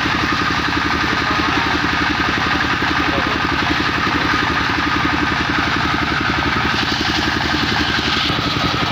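Engine of a portable circular sawmill running steadily, with a fast, even firing rhythm and a steady high whine above it.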